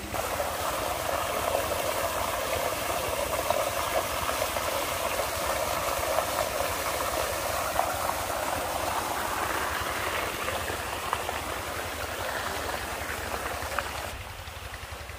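Water from a solar tubewell's delivery pipe pouring and splashing into a concrete tank, a steady rush that grows fainter near the end.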